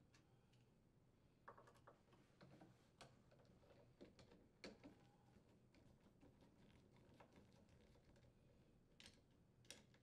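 Near silence, broken by faint, scattered clicks and ticks of a screwdriver's Torx bit and the screws against the metal refrigerator door hinge as its mounting screws are turned.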